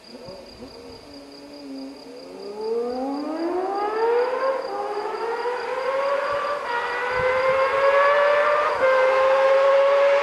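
Honda CBX 1000's inline-six engine, unseen down the road, accelerating hard toward the listener. Its exhaust note climbs in pitch, drops back at gear changes about four and a half, six and a half and nine seconds in, and grows steadily louder.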